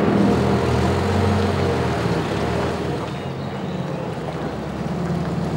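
Farm loader tractor's diesel engine running steadily, its pitch shifting slightly now and then.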